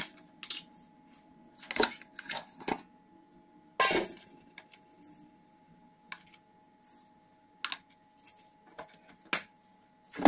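Kitchen handling noises: scattered clicks and knocks of plastic containers and dishes, with several brief shaking sounds as spice powder is sprinkled from a plastic container over a faint steady hum.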